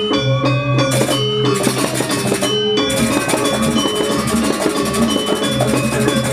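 Balinese gamelan semar pegulingan music: bronze metallophones ring in an interlocking pattern over a steady pulse. For about the first three seconds the texture thins to a few sustained notes, then the full dense ensemble comes back in.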